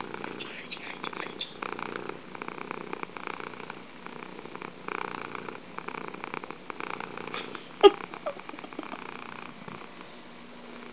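Domestic cat purring loudly right at the microphone, the purr swelling and easing with each breath and growing fainter near the end. One short sharp sound cuts in about eight seconds in.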